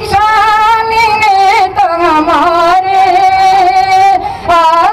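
A woman in her sixties singing a Haryanvi folk song solo into a microphone, holding long notes that waver and bend in pitch.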